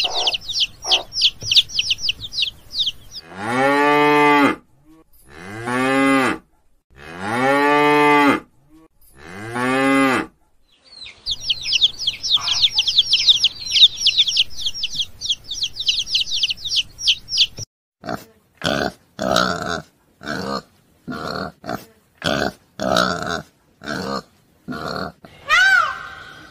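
A cow mooing four times, each moo a long low call of over a second. Before and after the moos come stretches of rapid high-pitched chirping, and a quick run of short calls follows near the end.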